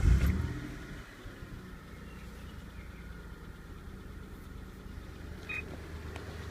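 Dodge Stealth's 3.0-litre V6 catching and flaring up as it starts, then settling within about a second into a steady idle. A light lifter tick runs under the idle, from a hydraulic lifter that isn't pumping up, with STP oil treatment just added. A brief beep comes about five and a half seconds in.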